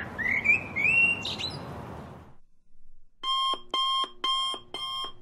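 Birds chirping in short rising calls over a steady background rush for about two seconds, then, after a brief gap, a digital alarm clock beeping in even, repeated beeps, about two a second.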